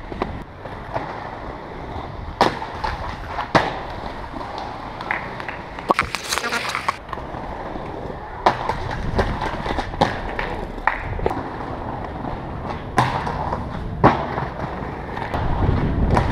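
Aggressive inline skates rolling over paving stones and concrete, with sharp clacks of jumps and landings scattered throughout and a grinding scrape on a ledge about six seconds in.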